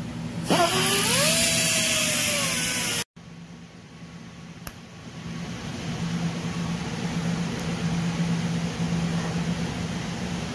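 A small handheld die grinder with an abrasive roll spins up with a high whine and grinds for a couple of seconds, then cuts off abruptly. A TIG welder's steady hum and arc noise follow as the arc runs on an exhaust tube.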